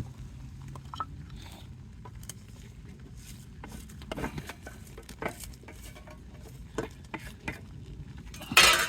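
Scattered small clicks, taps and ticks of dry twigs and kindling being handled and laid around a just-lit birch-bark fire, with one brief louder rush of noise near the end.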